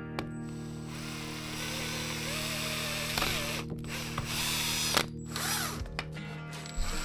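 Cordless drill running a small twist bit into a wooden board, boring a pilot hole; the motor runs steadily and stops about five seconds in.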